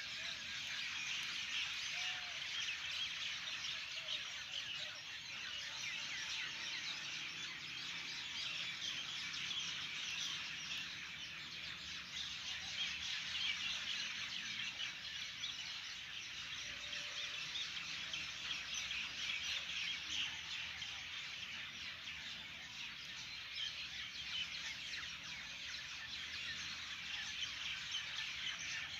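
Dense, steady chorus of many small birds chirping at once, the chirps packed too closely to pick out single calls.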